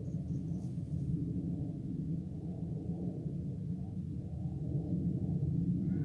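Steady low rumble of wind buffeting the microphone, with a short faint bird call at the very end.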